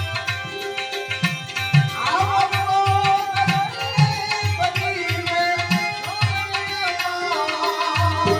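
Gujarati bhajan music in an instrumental passage: a hand drum beats a rhythm of deep strokes, about two a second, and a held melody line comes in about two seconds in.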